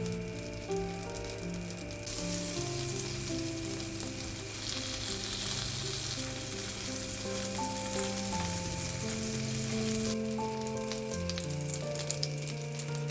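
Food frying in a pan, a steady sizzle that grows louder about two seconds in and eases back near the end, over soft background music.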